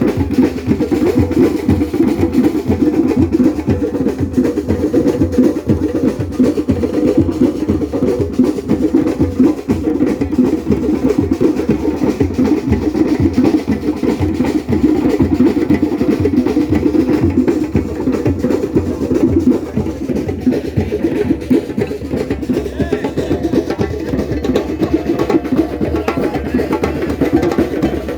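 Djembe played by hand in a fast, unbroken rhythm of dense strokes.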